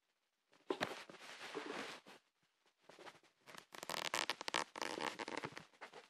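Close rustling and crinkling of a paper valentine card being handled, in two bursts: one from about half a second to two seconds in, and a longer one from about three and a half seconds to nearly six seconds in.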